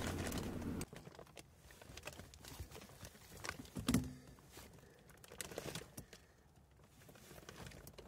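Faint handling noises as a replacement hot tub flow switch is worked onto its plastic pipe: scattered light clicks and rustles, with a sharper knock about four seconds in. A steady hum cuts off just under a second in.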